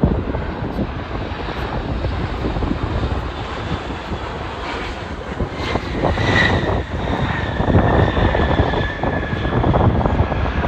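Airliner engines passing close by: a heavy rumble, with a high whine that comes in about six seconds in and slowly falls in pitch as the plane goes past.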